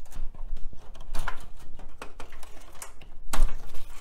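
Power cable connectors being pulled off drives inside a metal computer case: scattered clicks, scrapes and rattles of plastic connectors and wiring, with a louder knock about three and a half seconds in.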